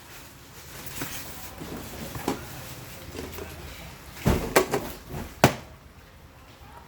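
Several short knocks and clacks of hard objects being handled, the loudest in a cluster past the middle.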